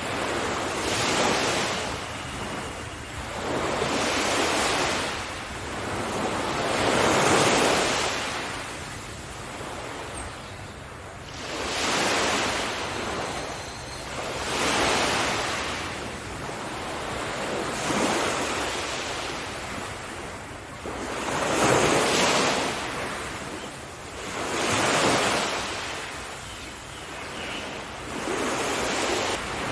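Sea waves breaking on a shore, each surge of surf rising and falling away about every three seconds.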